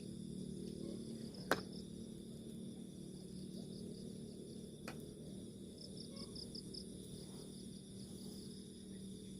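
Crickets and other insects trilling steadily, with a run of quick chirps about six seconds in. A single sharp click stands out about one and a half seconds in, with a fainter one about five seconds in.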